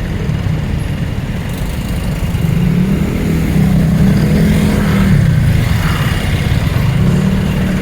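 Busy road traffic passing close by, vehicle engines running over a steady rumble of tyres; a low engine hum grows louder about two and a half seconds in.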